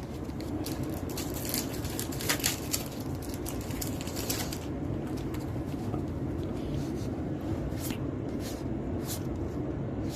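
Trading cards being handled and slid over one another: a run of short clicks and rustles, busiest in the first half and again briefly near the end, over a steady background hum.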